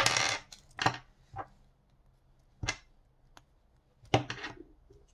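Steel screwdriver bits clicking and rattling against a plastic bit cassette as they are handled and fitted in, a brief rattle at the start followed by a few separate clicks and another short rattle near the end.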